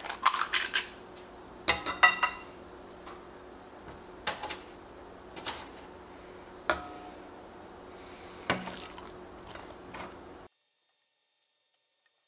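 Stainless steel spring-release ice cream scoop clinking and scraping against a glass mixing bowl while scooping and packing sausage meat: clusters of sharp metal-on-glass clicks, some ringing briefly. About ten seconds in the sound drops away, leaving only a few faint ticks.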